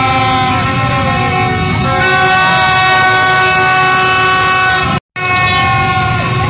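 Many vehicle horns honking at once at different pitches, long overlapping blasts, over the din of a street crowd on motorbikes. The sound drops out for an instant about five seconds in, then the horns carry on.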